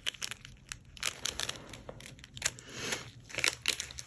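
Small clear plastic charm bags crinkling and crackling as gloved hands handle them, a run of irregular crackles and rustles.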